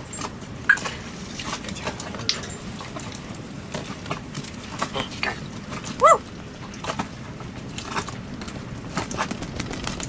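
Scattered light clicks and taps as an African grey parrot moves about on a hard dashboard. There is one short call with a rising and falling pitch about six seconds in.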